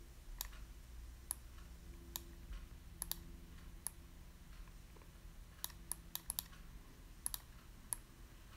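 Faint, irregular clicking of a computer mouse, about fifteen sharp clicks, some in quick runs of two or three, as a design element is dragged and resized on screen.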